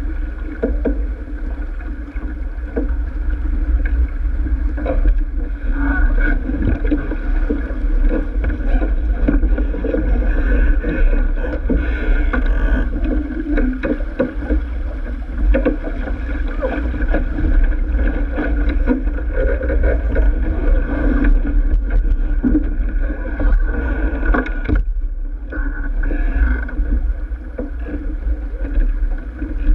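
Sailing keelboat under way: wind buffeting the microphone and water rushing along the hull, with scattered clicks and knocks from deck gear as the crew handle lines and a winch.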